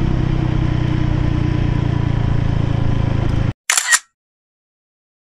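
Motorcycle engine running steadily while riding, cutting off abruptly about three and a half seconds in. A brief sharp click-like burst follows.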